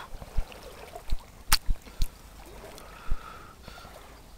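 A series of dull knocks and one sharp click about a second and a half in, from the handheld camera being bumped and handled while pushing through bankside vegetation, over a faint trickle of stream water.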